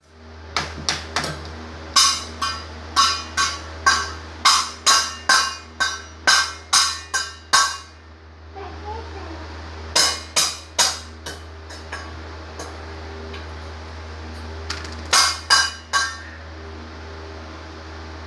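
Something that rings being struck over and over, about two strikes a second, in three runs with pauses between, the first run the longest. A steady low hum lies underneath.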